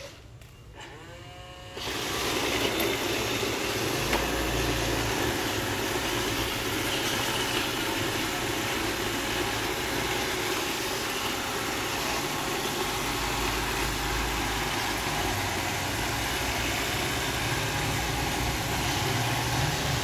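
iRobot Roomba 780 robot vacuum starting to clean: about two seconds in its vacuum motor and brushes come on suddenly and keep running steadily.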